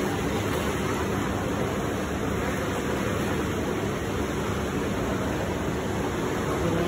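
Steady splashing and churning of water as a crowd of large fish thrashes at the surface of an open-top aquarium tank during feeding.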